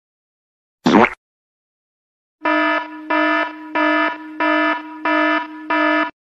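An electronic alarm-style beep sound effect: six evenly spaced buzzy beeps, about one and a half a second, each ringing on faintly into the next. A brief noisy swish comes about a second in.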